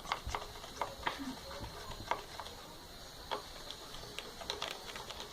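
A stirring stick clicking and scraping against the sides of a container while stirring slime mixture of glue, boric-acid water and baking soda, in irregular small ticks.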